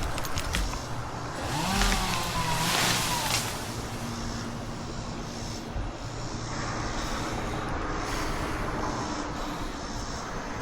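Gas chainsaw running with a wavering engine note. It revs up about two seconds in, then runs more steadily. A few sharp cracks come near the start.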